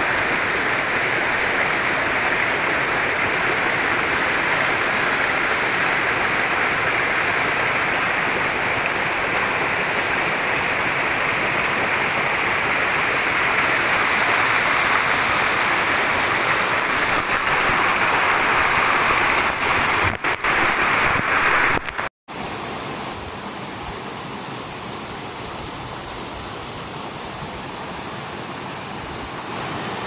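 Waterfall and rocky stream rushing steadily. A little past two-thirds through, the sound drops out for a moment and comes back quieter and duller.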